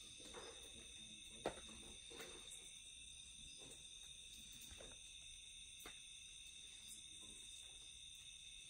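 Near silence outdoors at night: a faint, steady, high-pitched drone of night insects, with one sharp tap about a second and a half in and a few softer ticks.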